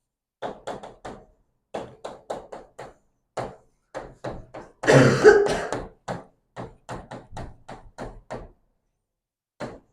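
Short taps and strokes of a pen or chalk writing on a board, coming in quick runs several a second, with one louder, longer burst about halfway through.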